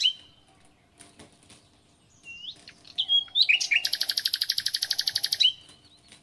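Bird song: a few short rising chirps, then a loud fast trill of about ten notes a second lasting nearly two seconds.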